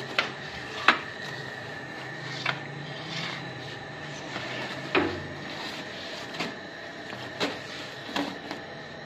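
Long-handled wooden bread peel knocking and scraping against the stone hearth and ledge of a bakery oven as flatbreads are pulled out, about eight sharp knocks spaced irregularly, over a steady background hum.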